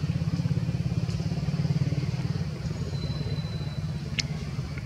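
An engine running steadily at idle, a low rumble with a fast, even pulse.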